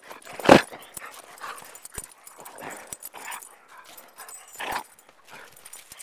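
Hungarian Vizsla making short vocal noises at very close range while mouthing at a gloved hand, in irregular bursts with one loud burst about half a second in.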